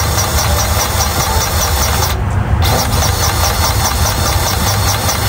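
A compact excavator's diesel engine running steadily, a loud, even low hum with a faint regular ticking over it.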